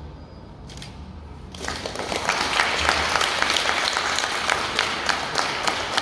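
Audience applause breaking out about a second and a half in, many hands clapping steadily.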